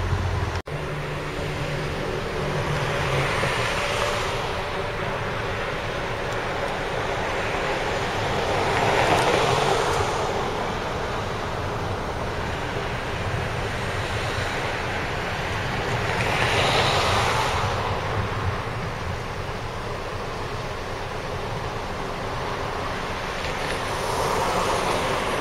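Road traffic going past: a steady hiss of tyres and engines that swells about four times as single vehicles pass close by.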